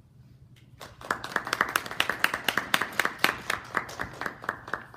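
A small audience clapping in applause at the end of a talk. The clapping starts about a second in, with many single claps standing out.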